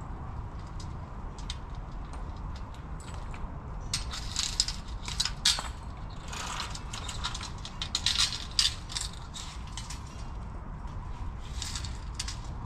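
Hens pecking and scratching in dry compost mulch: a run of crisp, irregular clicks and rustles, busiest from about four seconds in to nine, over a low steady rumble.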